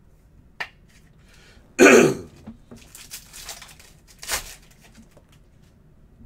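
A light click, then a single loud cough about two seconds in, followed by the crinkle and tearing of a trading-card pack wrapper being opened, sharpest a little past the middle.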